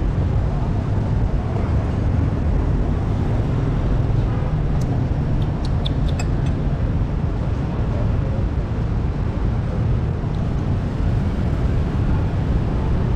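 Steady rumble of road traffic, with a few light clinks about halfway through as a metal fork touches a ceramic plate.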